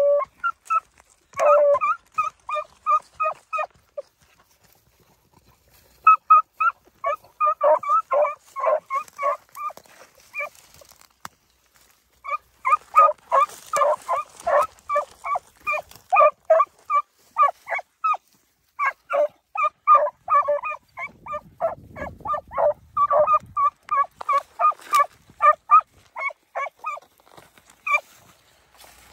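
Beagle hounds giving voice in short, rapid barks, several a second, in runs of a few seconds with a pause about four seconds in. This is hounds baying on a rabbit's scent trail.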